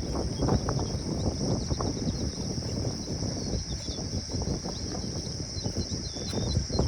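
Steady high insect buzz with short bird chirps, over louder irregular low rustling and knocking.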